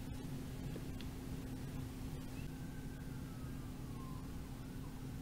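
Steady low hum and room noise. About halfway through, a faint tone glides slowly downward and fades.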